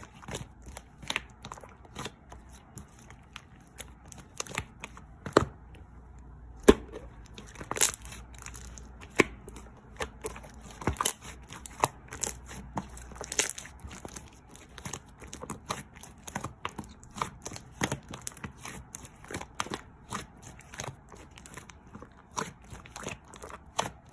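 Irregular close-up crinkling and crackling, a dense run of sharp clicks and crackles that come at uneven intervals.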